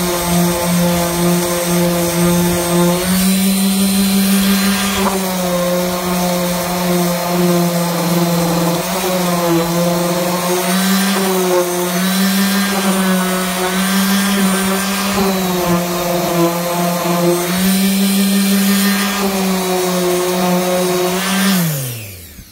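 Small electric palm orbital sander with 220-grit paper running steadily against a rubber RC tyre sidewall, its hum dipping slightly in pitch now and then as it is pressed on. Near the end it is switched off and winds down with a falling pitch.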